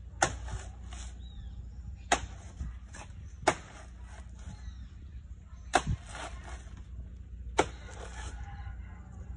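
A blade chopping into the fleshy stem of a banana plant: five sharp chops, spaced unevenly about every one and a half to two seconds.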